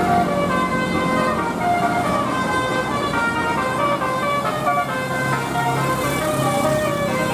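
Indonesian 'telolet' multi-tone bus horn playing a tune, a string of held notes stepping up and down in pitch, over steady road noise.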